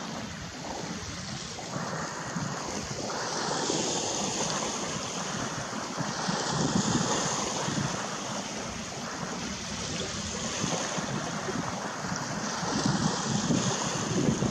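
Wind gusting on the microphone over lapping water: a steady rush with uneven low swells.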